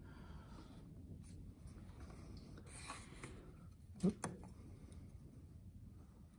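Carpenter's pencil scratching marking lines on MDF board along a metal speed square, faint, with two quick light knocks just after the middle as the square is shifted.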